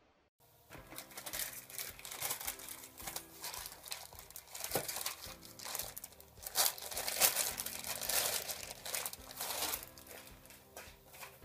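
Clear plastic wrapping crinkling as it is pulled off a copper-clad PCB board and handled. The irregular crackling dies away near the end.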